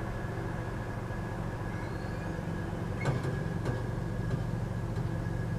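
Car engine idling, heard from inside the cabin as a steady low hum, with a faint click about three seconds in.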